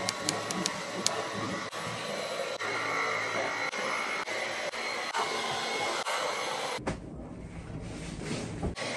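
Cordless stick vacuum cleaner running with a steady whirr, cutting out about seven seconds in, after which only a softer, lower rumble remains.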